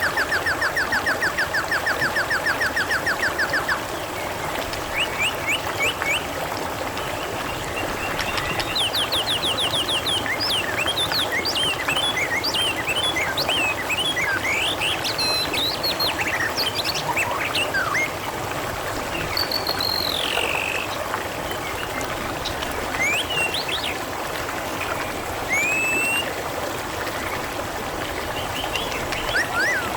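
Trickling, splashing water running steadily, with wild birds chirping and calling over it: a fast trill in the first few seconds, more short trills a few seconds later, then a busy stretch of short chirps and whistles.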